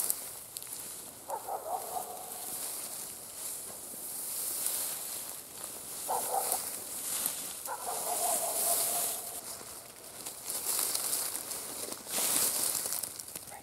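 Footsteps wading through tall dry grass, the stems swishing against clothing in repeated surges. Three short higher-pitched tones cut in about a second and a half, six and eight seconds in.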